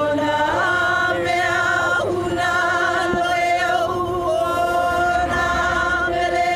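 Group of voices singing a Hawaiian chant together, unaccompanied, in long held notes.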